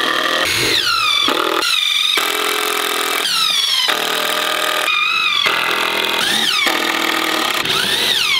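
Cordless impact driver driving screws into wooden boards in a string of short runs. Its motor whine rises and falls in pitch in each run, and the runs start and stop abruptly.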